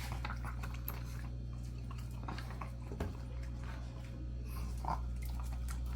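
Several Shih Tzus eating fruit: scattered wet smacking and chewing clicks over a steady low hum, with a knock about three seconds in and a brief higher sound near five seconds.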